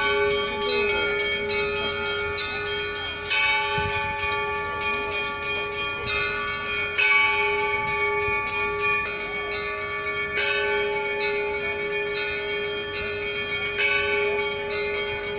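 Orthodox church bells ringing, with a fresh stroke about every three seconds and each stroke ringing on into the next.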